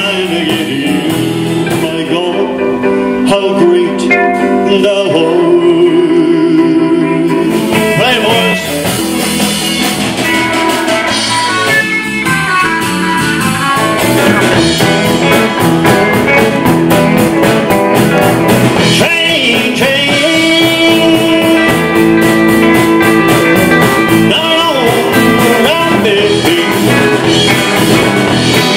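Live rock and roll band music led by electric guitar, with held melody notes over the band. The music shifts to a different passage partway through.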